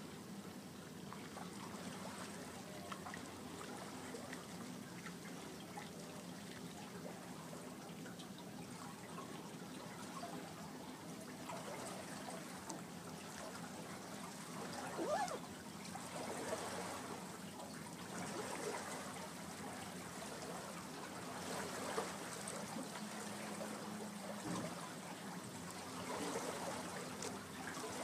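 Gentle water trickling and lapping, with a low steady hum underneath and a few slightly louder splashy moments around the middle and near the end.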